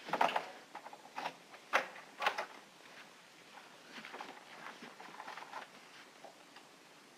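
A door being unlocked and opened: several sharp clicks and knocks of key, lock and handle in the first couple of seconds, then fainter rattles and clicks.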